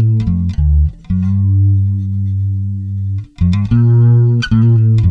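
Fretless electric bass guitar playing a melodic phrase of plucked notes, with one long note held for about two seconds, played with fingertip vibrato.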